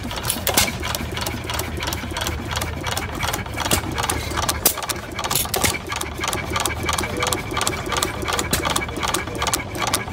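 Olds Type R stationary gas engine running steadily. It makes an even, rhythmic clatter of sharp clicks, several a second, over a low hum.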